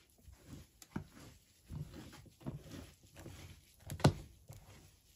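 Hands mixing and patting damp potting mix in a shallow plastic tub: soft, irregular crumbly rustling, with one sharp knock about four seconds in.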